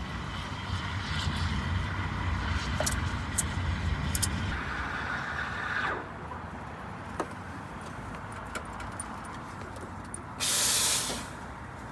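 Espresso machine steam wand steaming milk in a jug for about six seconds with a hissing, rumbling sound that stops abruptly. It is followed by scattered light clinks and, near the end, a short loud blast of steam as the wand is purged.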